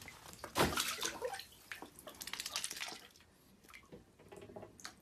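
Water splashing as a white duck bathes in a bathtub: heavy splashes about half a second in and again around two to three seconds, then lighter splashes and drips.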